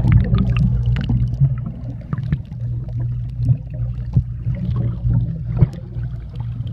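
Underwater sound in a swimming pool, picked up by a phone sealed in a thick waterproof pouch: a steady low hum with scattered bubbly clicks and knocks.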